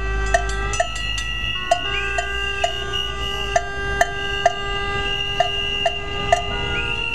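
Rally noisemakers: several horns blown in long, overlapping steady tones at different pitches, over a steady beat of struck percussion about twice a second.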